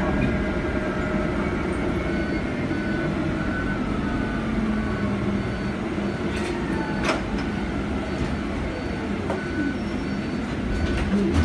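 Cabin of a 2019 Proterra Catalyst BE35 battery-electric bus under way: steady road and body rumble with the whine of its UQM permanent-magnet drive motor, which falls in pitch through the middle as the bus slows. A single sharp knock about seven seconds in.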